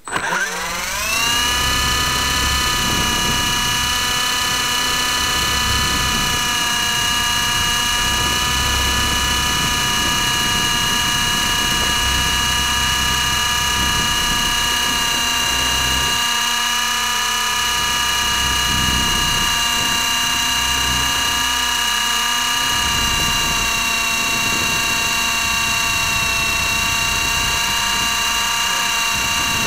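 Motors and propellers of a small remote-controlled aircraft carrying the camera, spinning up with a rising whine over the first second as it lifts off, then a steady high-pitched whine in flight. Wind rumbles on the microphone underneath.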